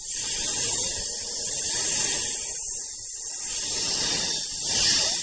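Snake hissing: a long, high hiss that swells and eases several times, with a rough low rustle underneath.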